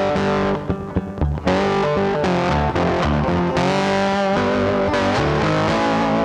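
Background music: distorted electric guitar rock with a steady beat, with a short break about a second in.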